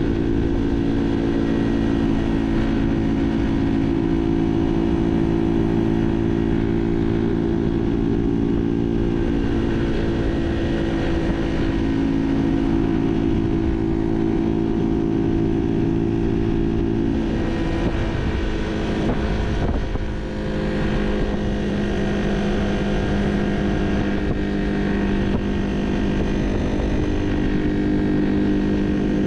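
Barton Volcano 50cc moped's engine running under way, fitted with a 15-tooth front sprocket instead of the stock 12-tooth. It keeps a steady note, then dips and shifts in pitch about two-thirds of the way through before settling again.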